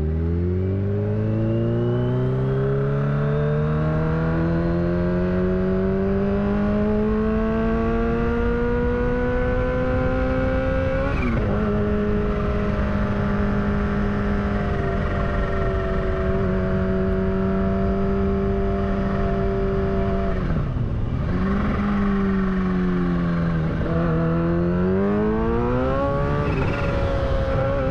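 Kawasaki Ninja H2's supercharged inline-four engine pulling hard under acceleration through a loud exhaust. The engine note rises steadily for about ten seconds, steps down at a gear change and holds steady. It dips briefly about twenty-one seconds in, then climbs again near the end.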